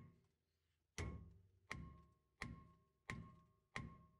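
Repeated hammer blows on a 2010 Ford Ranger's rusted rear brake rotor, about six strikes at a steady pace of one every 0.7 seconds, each ringing like struck metal and dying away. The rotor is seized to the hub by corrosion from the truck sitting unused, and it is being knocked loose.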